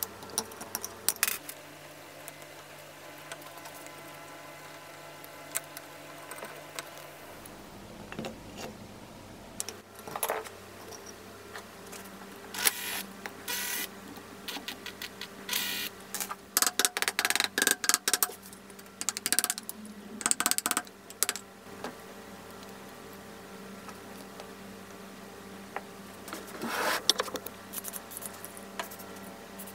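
Scattered metallic clinks and scrapes of hand tools taking apart an old cast-iron bench grinder, a screwdriver and pliers on the screws of its switch block, coming in quick runs in the middle. About 27 seconds in, a short hiss of aerosol penetrating oil being sprayed onto the housing.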